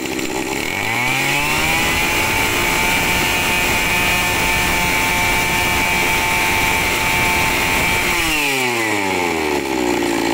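Kawasaki TG28 two-stroke brush cutter engine (28cc) revved from idle up to full throttle about a second in, held high and steady for about six seconds, then let back down to idle near the end.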